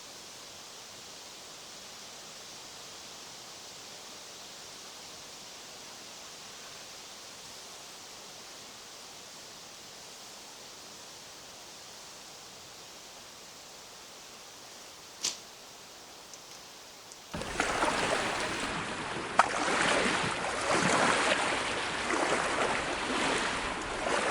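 Steady soft rush of wind and water outdoors. About two-thirds of the way through it switches abruptly to much louder, rough gusting wind noise with a few sharp knocks.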